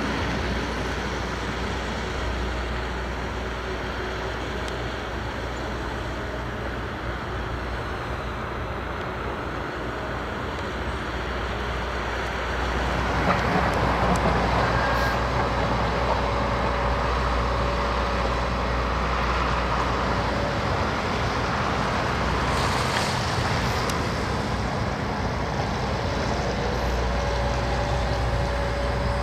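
Heavy diesel machinery running steadily, growing louder about halfway through, with a brief higher noise shortly after.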